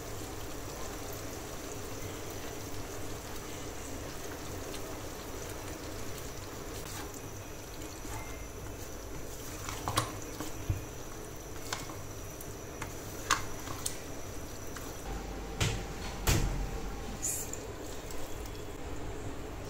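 Liquid poured into a wok of chicken and vegetables, then a wooden spatula stirring the saucy mix in the pan. Several sharp knocks of the spatula against the wok come in the second half.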